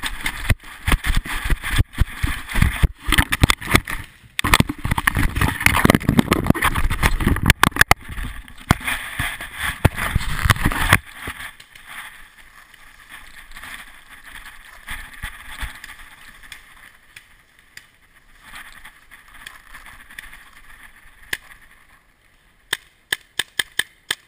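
Heavy rustling and rubbing noise as a camera is jostled through dry leaves and brush, cutting down sharply about eleven seconds in to a quiet rustle. Near the end comes a quick run of about eight sharp pops.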